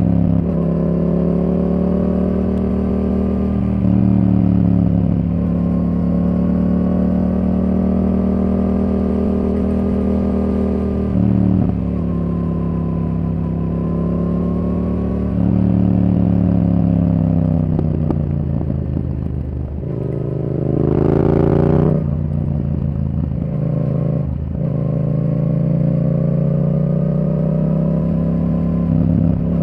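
Yamaha R7's parallel-twin engine through a Yoshimura R77 exhaust, pulling steadily under way. The engine note breaks briefly at a few points, where the loudness steps up, then sags and quietens about two-thirds of the way through. A short loud rev follows, and the engine pulls on again.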